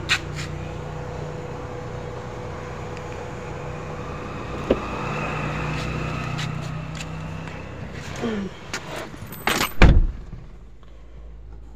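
BMW car door being opened by its handle with clicks, someone getting into the seat, then the door shut with a heavy thump just before ten seconds in, after which the outside hum is muffled and quieter. A steady low hum runs under the first part.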